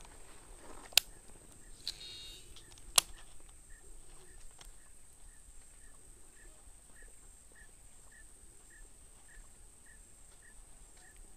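Two sharp clicks about two seconds apart from a Shimano Exsence DC baitcasting reel as it is worked by hand. Under them, a faint chirp repeats about twice a second over a thin steady high whine.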